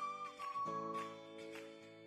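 Background music: a high held melody over sustained chords, with light regular taps about twice a second.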